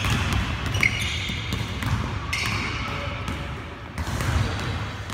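Basketballs being dribbled on a hardwood gym floor: quick, irregular bounces from more than one ball, with short high sneaker squeaks from players cutting on the court.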